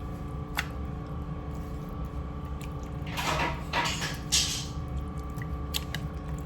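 Hands rubbing seasoning into raw chicken: wet squishing and rustling handling noises, loudest in a few bursts past the middle, with a few light clicks over a steady low hum.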